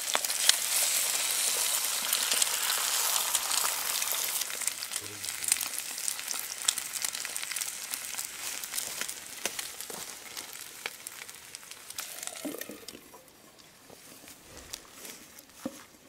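Eggs, potatoes and pork frying in a pan over a wood fire, a steady hiss with small crackling pops. The sizzle is loudest in the first few seconds and fades gradually, faint for the last few seconds.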